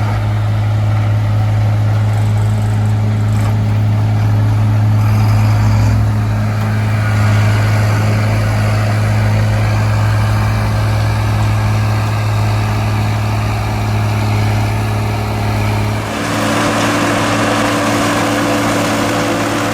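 John Deere 4440 tractor's six-cylinder diesel engine running steadily while working with a forage harvester, a constant low drone. About sixteen seconds in, the sound changes abruptly to a brighter, noisier mix.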